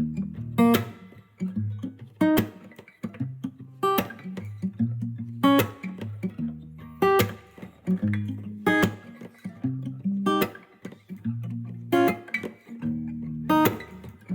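Background music: a plucked-string tune with a sharp note about every second and a half over held low notes.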